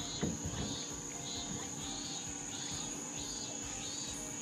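Cicadas singing in the bankside trees: a steady high-pitched drone with a second, pulsing call repeating about every half second over it.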